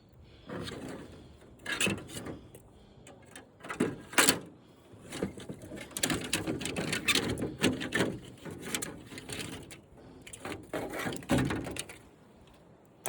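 Irregular knocks, clatter and scraping from parts of a dismantled flat-screen TV being handled and moved about.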